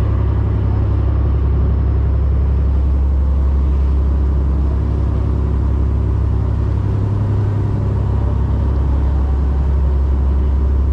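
Fishing boat's engine running steadily underway, a loud, unbroken low drone.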